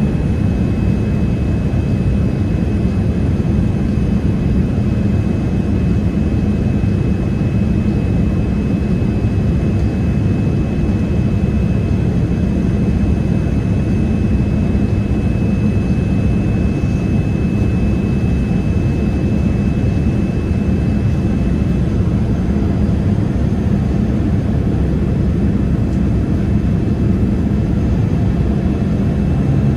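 Steady cabin noise inside an American Airlines Boeing 787-8 airliner: the even, low rush of its jet engines and airflow. A faint high steady tone sits above it and fades out about two-thirds of the way through.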